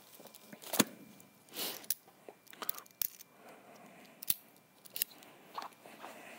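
Unpacking noises: a handful of sharp clicks and knocks with short rustles of packaging as accessories are lifted out of a box and handled.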